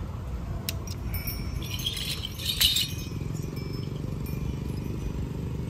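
Small metal bells worn on a costume jingling briefly, loudest about two and a half seconds in, over a steady low background rumble.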